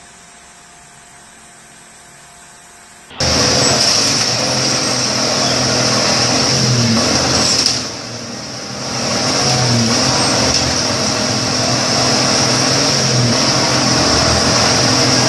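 Faint hiss, then about three seconds in an abrupt cut to a loud vehicle engine running under a strong steady high hiss; the engine's pitch wavers, and the sound dips briefly about eight seconds in.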